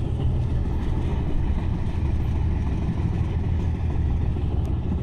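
Sleeper train's steady low rumble heard from inside the cabin, with no horn or sudden sounds.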